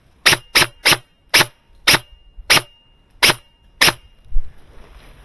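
Airsoft rifle firing eight single shots in semi-auto, roughly half a second apart with the gaps widening slightly, each a short sharp shot.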